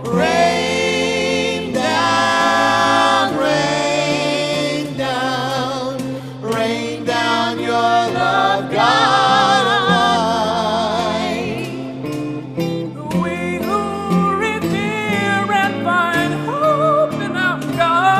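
Singers performing a hymn with acoustic guitar accompaniment, several voices together on long held notes with vibrato.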